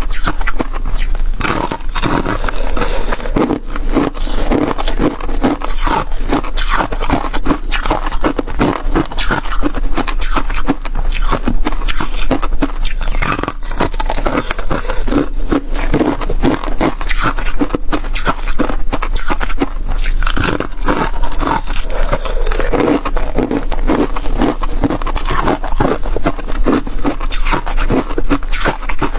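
Close-miked crunching and chewing of flaky frozen ice, a dense, unbroken run of crackling crunches and scrapes.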